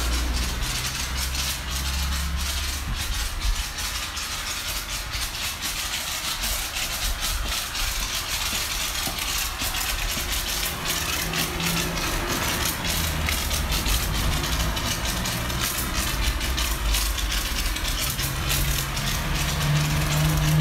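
Pressure-washer spray hissing steadily as it rinses snow foam off a car, with the washer's low mechanical hum underneath.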